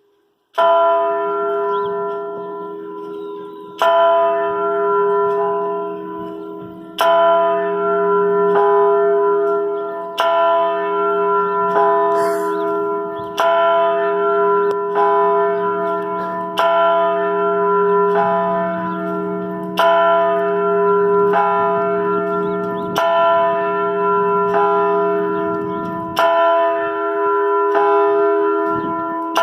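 Church bell tolling the noon hour: about nine slow, loud strokes roughly three seconds apart, each ringing on into the next, after a brief silence.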